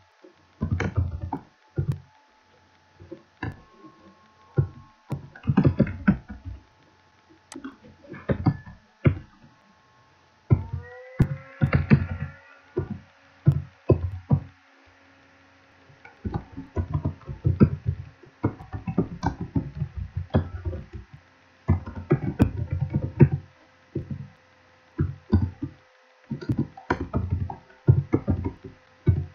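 Typing on a computer keyboard: irregular bursts of keystrokes with short pauses between them. A faint steady tone sets in about 11 seconds in.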